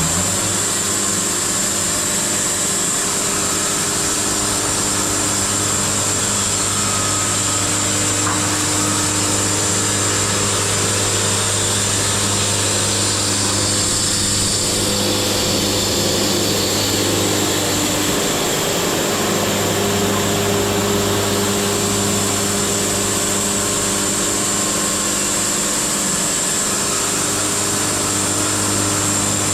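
Wood-Mizer LT70 band sawmill running steadily, its band blade sawing through a log, with a high whine over the engine hum and a shift in tone about halfway through.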